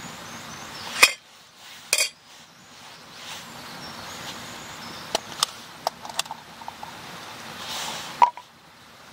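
Metal pot lid clinking against a steaming metal pot as it is lifted off: sharp clinks about one and two seconds in and again near the end, with a run of lighter ticks in between.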